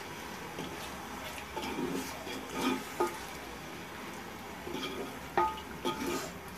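Wooden spoon stirring thick mutton pickle in a metal pot on the stove, over a faint sizzle. Scattered knocks of the spoon against the pot ring briefly. They come in two clusters, about two seconds in and again about five seconds in, the loudest in the second.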